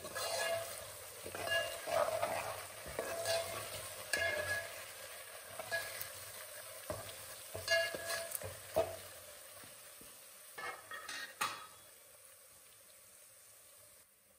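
Metal ladle stirring and scraping around a metal pot as garlic, whole spices and crushed dried red chillies fry in oil, with ringing clinks of metal on metal and frying sizzle. The stirring stops a few seconds before the end.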